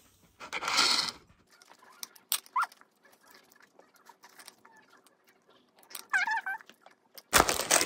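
A small white dog whining: a short falling whine a few seconds in and a longer, wavering whine near the end. A loud plastic crinkle cuts in just before the end.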